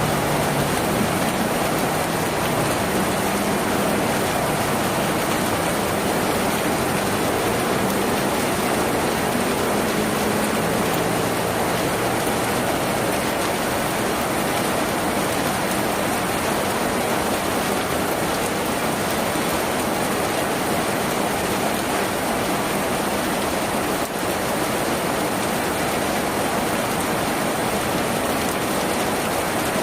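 Steady heavy rain drumming on a tin roof, an even hiss with no breaks. A faint low drone underneath fades away over the first ten seconds or so.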